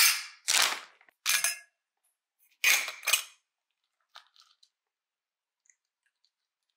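Dry dog kibble poured from a stainless steel scoop into a stainless steel bowl: five short, sharp rattling clatters in the first three and a half seconds, followed by a few faint clicks.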